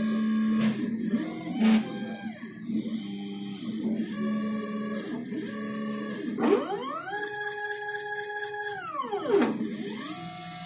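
Stepper motors of a DIY CNC thermocol hot-wire cutting machine whining as the carriage moves. The stacked tones glide up as each move speeds up, hold, then glide down as it stops, with several short moves and one longer one from about six to nine seconds in.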